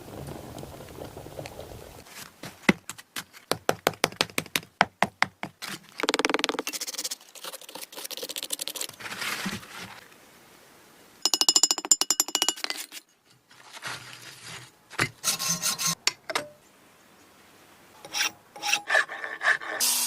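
Hand-tool work on a model pistol, cut together in short clips: a run of quick rasping strokes, about three or four a second, then longer bursts of filing or sawing and scraping, with a brief fast-pulsing whir near the middle.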